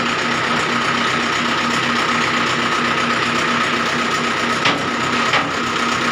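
Wire-cut brick extruder and its belt-and-gear drive running under power: a steady mechanical clatter with a fast, even pulse and a steady whine. Two short, sharp knocks come near the end.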